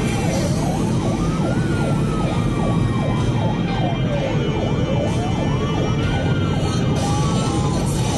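Paramedic response car's siren wailing, a slow rise and fall about every four and a half seconds with a rapid warble over it, above steady engine and road noise.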